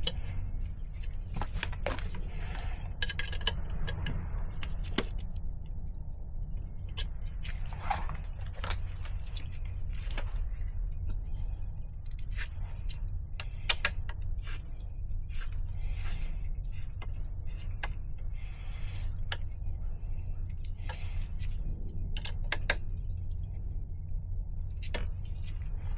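Irregular light clicks, taps and short scrapes of small metal parts and hand tools being handled, over a steady low hum.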